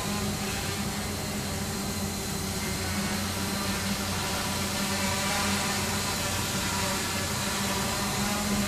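Quanum Venture quadcopter's four brushless Multistar motors and propellers buzzing steadily in a hover, a stack of tones over a propeller hiss that swells slightly now and then as the drone manoeuvres.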